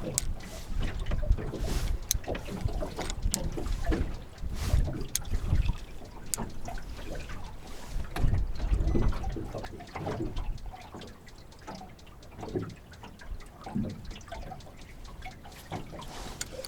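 Water lapping and sloshing in irregular surges, with a few light clicks in the first six seconds.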